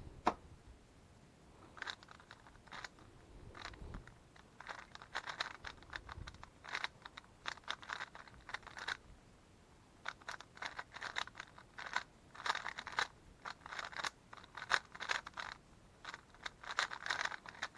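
Moyu Weilong GTS3 M magnetic 3x3 speedcube being turned fast in a timed solve: rattling clicks and clacks of the layers in quick bursts of turns, separated by short pauses.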